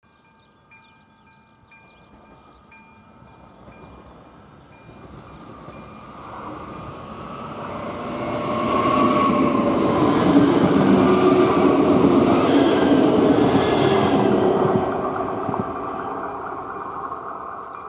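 A long 'Moravia' electric multiple unit passing on the main line: its rumble grows over the first several seconds, is loudest for about six seconds as the train goes by, then fades away. A faint regular ping sounds about once a second at the start.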